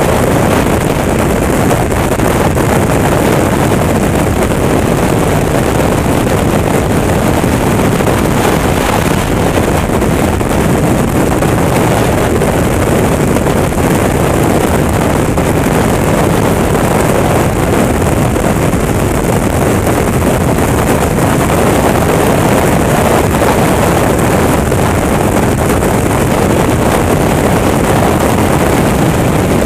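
Wind rushing over the microphone of a Honda CTX1300 motorcycle cruising at steady road speed, with its V4 engine and tyre noise underneath. The sound stays even, with no gear changes or revving.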